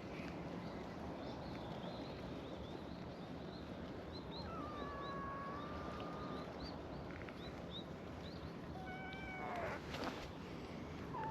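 Stray cats meowing: one long, level meow about five seconds in and a falling meow near the end, over a steady background hiss.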